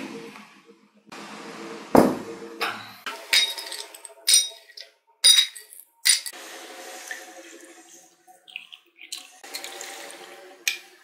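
Ice cubes dropped one after another into glass tumblers, clinking sharply against the glass. After that, a steady pour of orange cocktail from a steel shaker through a strainer over the ice.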